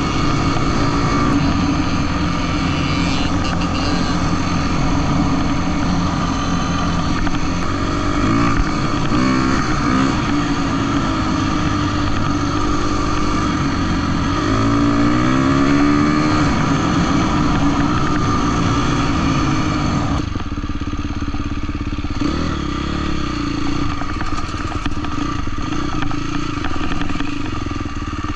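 Husqvarna dirt bike engine running while ridden along a gravel road, its pitch rising several times as the throttle is opened and shifted through, then easing off about two-thirds of the way through.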